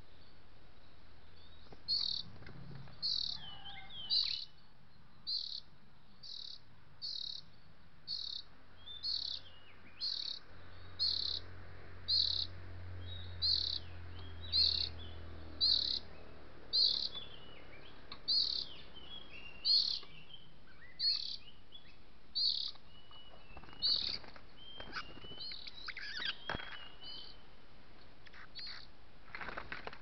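Oriental magpie-robin calling: one short high note repeated about once a second, slowing a little, then breaking into a run of varied chirps and rattling calls near the end.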